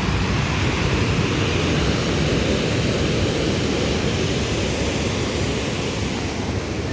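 Sea surf washing in steadily, with wind buffeting the microphone. The wash swells briefly in the middle.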